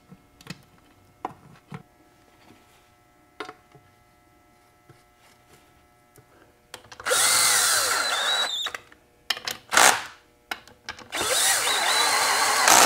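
Light metallic clicks and taps as bolts are set into the top cover of a Ford Toploader four-speed transmission. Then a power driver runs twice, about two seconds each, with a short burst between, spinning the cover bolts down.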